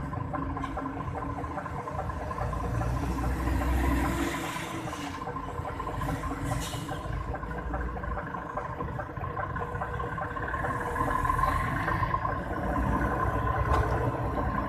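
Road traffic at a junction: a heavy diesel lorry and other vehicles running and passing. The noise swells about four seconds in and again near the end.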